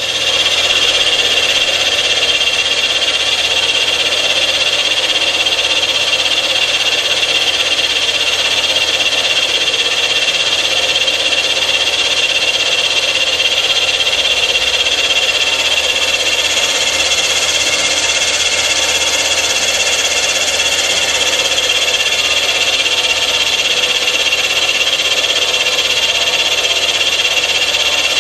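Carbide cutter in a Rottler F90Y CNC machine's spindle milling the cast-iron firedeck of a CAT 3500 engine block. It makes a loud, steady cutting noise with a high, ringing edge that comes in sharply at the start and holds even throughout.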